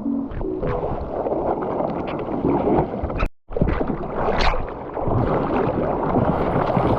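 Water rushing and splashing around a GoPro in the surf, with wind buffeting the microphone; the sound cuts out abruptly for an instant about three seconds in.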